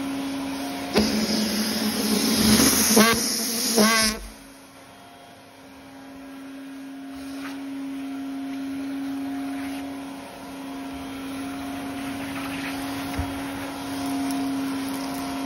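Vacuum cleaner running with a steady motor hum. From about a second in, a louder rush of suction with short rising whistles comes as the nozzle works the sofa fabric, then cuts off suddenly about four seconds in, leaving the quieter hum.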